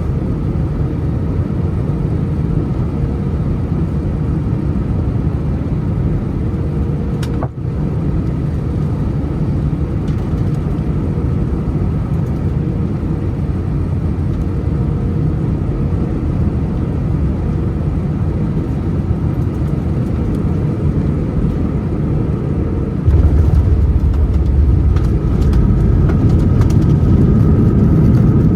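Airbus A319 cabin noise: the steady rumble of its CFM56 engines and airflow, with a brief click about seven seconds in. About 23 seconds in the rumble steps up louder and deeper.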